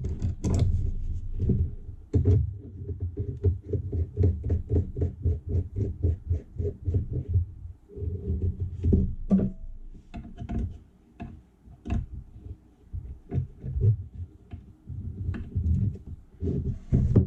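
Screw being driven in while a fly-tying vise is put together: a quick even run of light knocks and clicks, about five a second, for several seconds, then scattered handling knocks and clicks.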